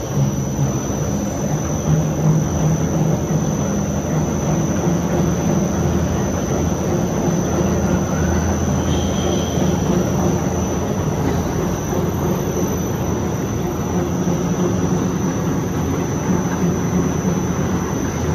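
A two-colour flexo printing machine running steadily, its rollers turning as the printed paper web winds onto the rewind roll, with a low hum and a thin, steady high-pitched whine.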